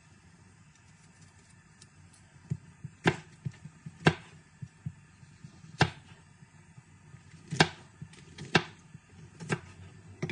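Kitchen knife chopping a tomato on a plastic cutting board: a series of sharp, irregular knocks as the blade strikes the board, beginning about two and a half seconds in.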